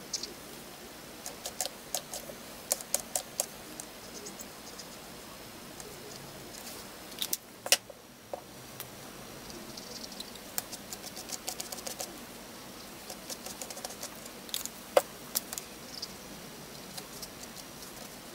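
Faber-Castell India ink brush markers being handled and worked on paper: scattered light clicks and taps, with two sharper clicks about eight and fifteen seconds in.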